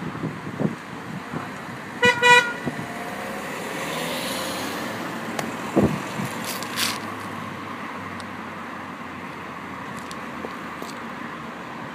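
A car horn toots twice in quick succession about two seconds in. Then a Citroën DS3 drives past close by, its tyres hissing on the road, with a single knock as it goes by.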